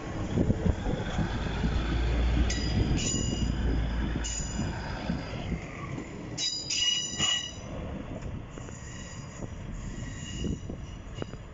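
Class 156 Super Sprinter diesel multiple unit drawing away round a curve: a low diesel rumble, fading after about five seconds, with the wheels squealing in several high-pitched bursts on the curved track. The loudest squeal comes about six to seven seconds in.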